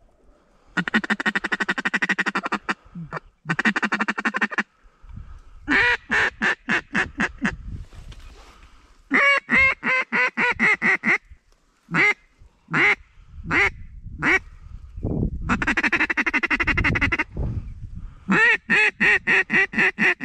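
A mallard duck call blown to imitate a hen mallard, calling to a duck coming back in: long buzzy runs of rapid notes alternating with strings of loud, sharp quacks.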